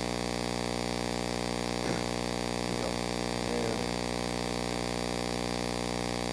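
Steady electrical mains hum, a buzz of many even overtones with a hiss over it, with only a couple of faint brief sounds about two and nearly four seconds in.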